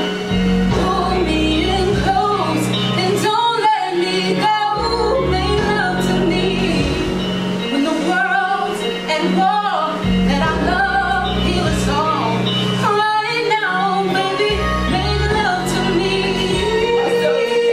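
A woman singing solo over instrumental accompaniment, her voice sliding between notes.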